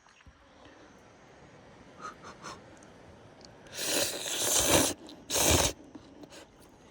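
A person eating a forkful of hot peperoncino pasta: a few light utensil clicks, then two loud, breathy mouth noises, one about a second long and a shorter one just after it.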